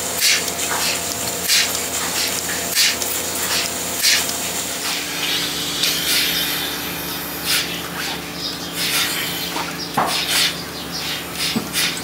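Pipeline milking system running: a steady machine hum with repeated short hissing clicks from the milking units' pulsators and vacuum lines while a milker unit is put on a cow.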